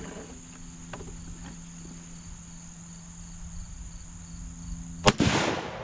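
A single 6.5×55 rifle shot from a Swedish M96 Mauser about five seconds in: a sharp crack with a short echoing tail.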